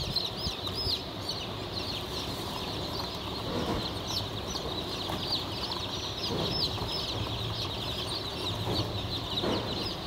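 A trayful of newly hatched chicks peeping continuously, many short high cheeps overlapping.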